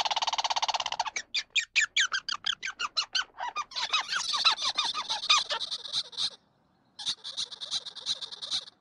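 Palm squirrel chirping: a buzzy call, then a fast run of high, sharp chirps about six a second, then two buzzing trills with a short break between them.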